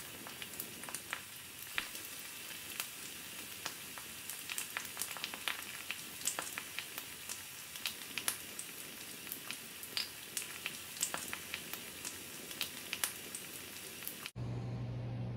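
Steaks sizzling on the grate of a charcoal grill over hot coals: a steady hiss with many small pops and crackles. It cuts off suddenly near the end, giving way to a low steady hum.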